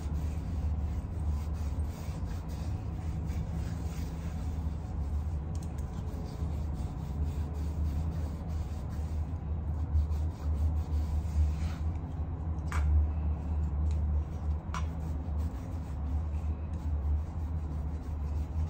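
Cloth held in tongs rubbing oil over the outside of a hot Lodge cast iron mini wok to season it: scratchy wiping strokes over a steady low hum. Two sharp clicks about two-thirds of the way through.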